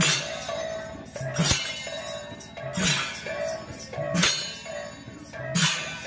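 Sambalpuri kirtan music: brass hand cymbals clashed together about every one and a half seconds, each clash ringing, with a low beat under each clash and a steady held note throughout.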